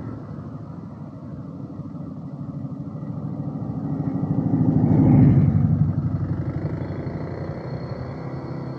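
Small motorbike's engine running with a fast, even pulsing as it rides along. The sound swells to its loudest about five seconds in, then eases off.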